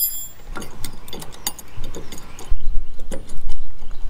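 Irregular light metallic clicks of a hand wrench and hex key working the bolts of a metal bed-rack bracket, with a low rumble coming in about halfway through.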